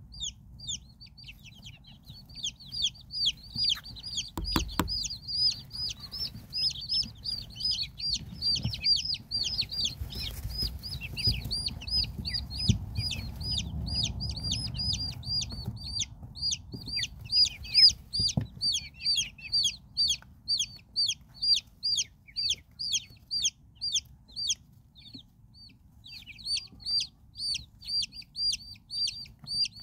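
A brood of silkie chicks peeping constantly, short high-pitched cheeps falling in pitch, several a second, that thin out briefly past the middle and then pick up again. A couple of low thumps sound under the peeping.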